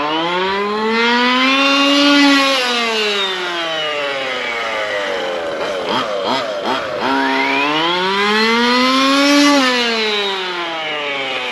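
ESP 30.5cc two-stroke race engine in a 1/5-scale RC truck, fitted with an Olimat tuned pipe, being run in at no more than half throttle. It revs up and eases back down twice in long smooth sweeps, each rise and fall lasting about five seconds.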